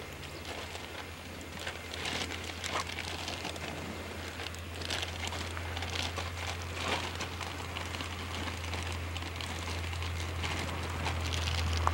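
Wind rumbling steadily on the microphone under a hiss, with scattered short crackles and rustles.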